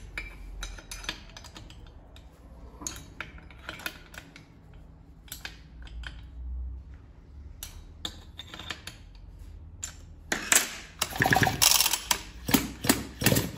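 Small metal engine parts clicking and clinking under hand work as the cylinder is fitted over the newly ringed piston of a Husqvarna 252RX two-stroke brushcutter engine. Scattered light clicks at first, then a quicker, louder run of clattering in the last three seconds.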